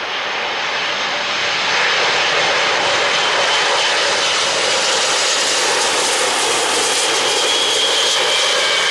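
British Airways Boeing 747-436's four Rolls-Royce RB211 turbofans passing low overhead on landing approach. The jet noise grows louder over the first two seconds and then holds steady, with a thin high whine coming in during the second half.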